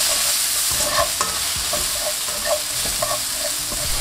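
Ground beef and onions sizzling in a non-stick frying pan with a steady frying hiss, while a slotted spatula chops and scrapes through the meat, making irregular taps and scrapes against the pan.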